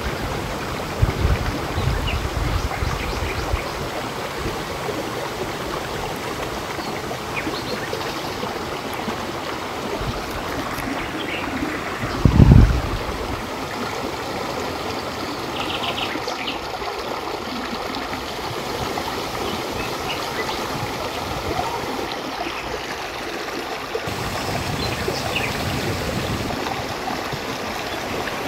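Rushing water of a rocky mountain stream pouring over boulders and small waterfalls, a steady rush. A brief low thump comes about twelve seconds in.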